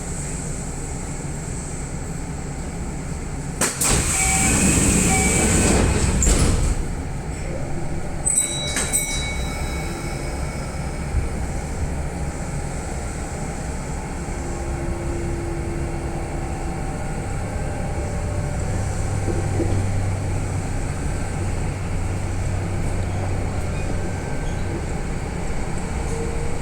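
Electric commuter train heard from inside the carriage: the doors slide shut with a hiss of air about four seconds in, a few clicks follow, and the train pulls away and runs on, a low motor hum rising in the second half.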